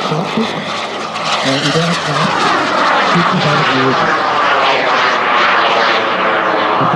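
Turbine engine of a large radio-controlled A-10 Warthog model jet whining loudly as it makes a low pass overhead, its pitch falling steadily as it goes by.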